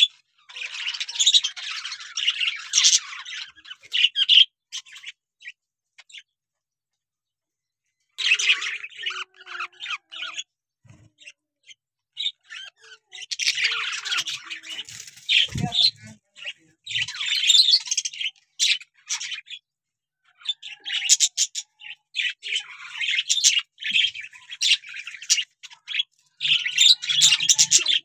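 Budgerigars chirping and chattering in busy bursts of a few seconds each, with short pauses between, and a single low thump about halfway through.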